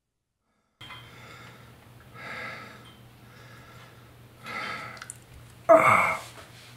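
A man breathing heavily in ragged, gasping breaths every couple of seconds, then letting out a loud, short pained cry near the end.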